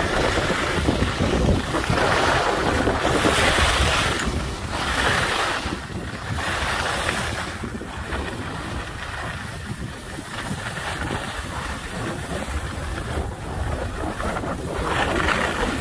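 Wind buffeting the microphone while moving fast downhill, mixed with the hiss and scrape of edges sliding over packed snow. It swells and fades every second or two.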